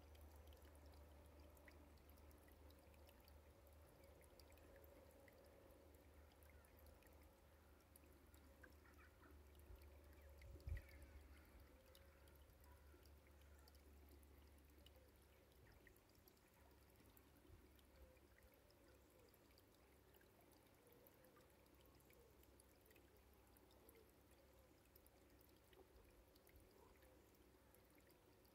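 Near silence: a faint, steady trickle of water, under a low rumble that fades after the first half, with one soft knock about ten seconds in.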